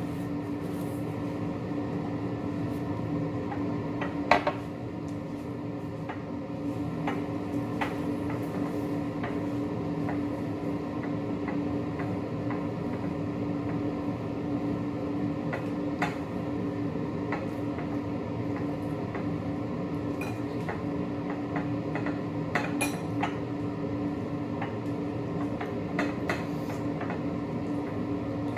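Cutlery clinking against plates and dishes in scattered light clicks, with one sharper knock about four seconds in, over a steady low hum.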